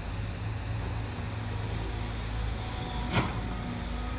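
Diesel engine of a Cat hydraulic excavator running steadily, with one sharp knock a little over three seconds in.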